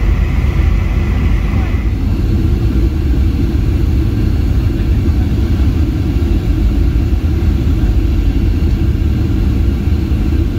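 Cabin noise of a Boeing 737-800 on short final: the steady rumble of its CFM56 engines and the airflow, heard from a window seat over the wing. A higher whine stops about two seconds in.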